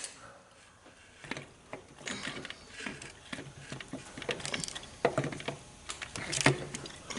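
Irregular clicks, knocks and light scraping of metal parts being handled during transmission reassembly, with several sharper knocks around the middle and near the end.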